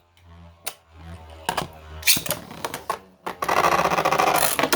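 Beyblade spinning tops: a few sharp plastic clicks, then about a second and a half of fast, dense clattering near the end as the tops clash.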